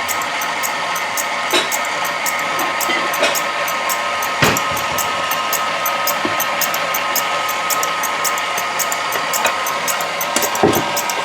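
KitchenAid stand mixer running steadily at speed 4, driving its metal food grinder attachment with no meat fed in yet; a steady motor hum with a fast, even ticking over it. A single knock about four and a half seconds in.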